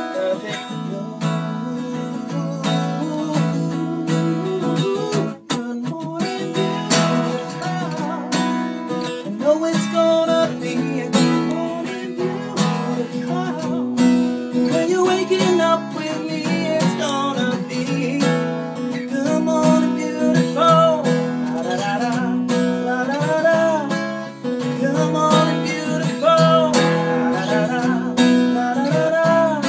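Acoustic guitar strummed in steady chords, with a man's voice singing a melody over it, partly without clear words.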